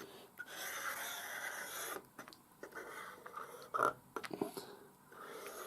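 Glue bottle nozzle drawn along the edge of a thin card model, giving a light scratchy rubbing, with a few soft taps and clicks of card handling a little past the middle.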